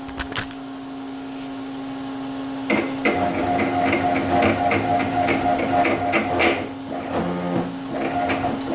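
Leadshine 863S68H stepper motor driving the mill's Z-axis at raised velocity, starting about three seconds in with a whine and regular clicks about three a second; it drops off briefly near the end and starts again. The motor is struggling at this setting, the sign of a stepper that is not suited to its drive. A steady hum from the drive is present throughout.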